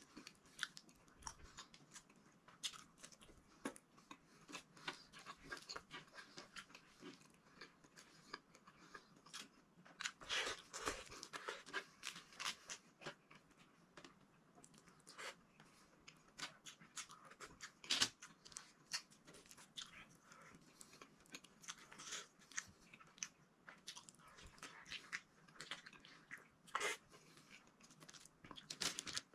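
Close-up chewing and wet mouth clicks of a person eating okra and eggplant, a run of short smacks that grows busier about ten seconds in.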